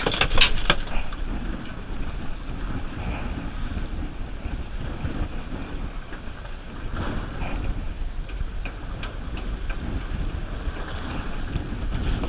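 Wind buffeting the microphone over steady boat and water noise at sea, with scattered sharp clicks and knocks of gear handling, the loudest cluster in the first second.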